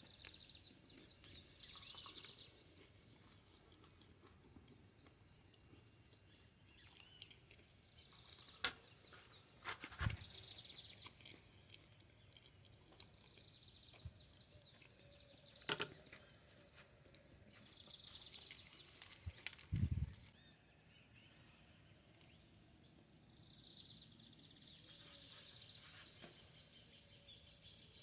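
Quiet outdoor ambience with faint bird calls coming and going, broken by a few sharp clicks and two short low thuds.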